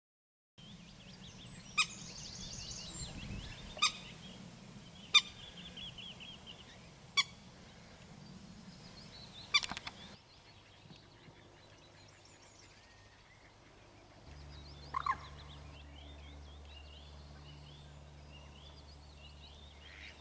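Birds calling and singing: about five sharp, loud calls spaced a second or two apart over twittering, then after a break about halfway through, quieter twittering over a low steady hum.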